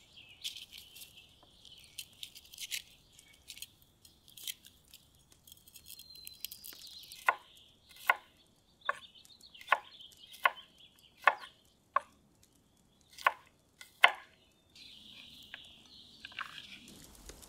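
Chef's knife cutting peeled garlic cloves on a wooden cutting board. Light clicks and taps come first, then about ten sharp knocks of the blade hitting the board, evenly spaced at just under one a second, in the second half.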